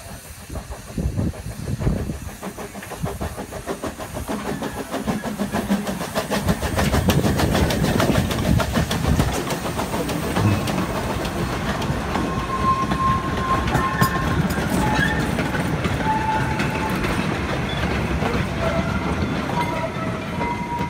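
Narrow-gauge steam train passing close by: the locomotive's exhaust beats, then a fast, even clatter of wagon wheels over the rail joints, louder from about a third of the way in. Short squeals from the wheels come in the second half.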